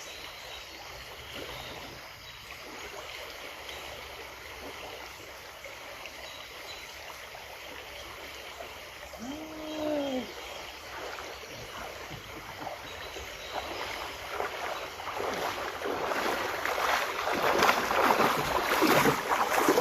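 Steady rush of flowing river water around a kayak, with a short rising-and-falling tone about ten seconds in. Over the last few seconds the water noise grows louder and choppier, with quick splashy strokes.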